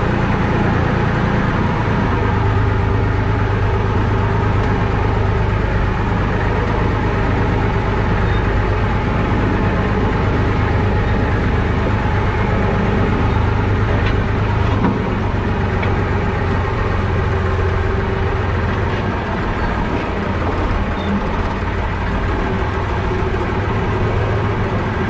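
IMT tractor's diesel engine running steadily under way, heard from inside the cab, with a steady low hum and a few faint clicks.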